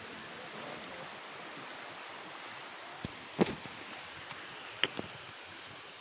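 Shallow forest stream running over stones, a steady rushing hiss. A few sharp clicks and knocks come in the second half, the loudest about three and a half seconds in.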